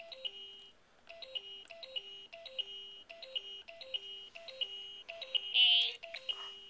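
An electronic toy playing a beeping tune, a short figure of three falling notes repeated about every 0.6 s. A brief, much louder, wavering high sound cuts across it about five and a half seconds in.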